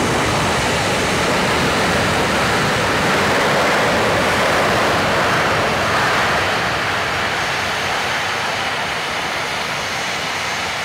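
Airplane passing, a steady rushing engine noise that swells a little in the middle and eases toward the end.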